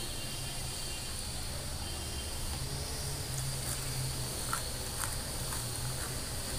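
Steady background with a low hum and a high, even drone. A few soft clicks of eating by hand and chewing come about halfway through.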